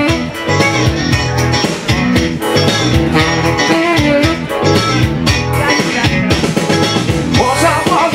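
Live blues band playing an instrumental passage: electric guitar over bass and drums. A wavering melodic line comes in near the end.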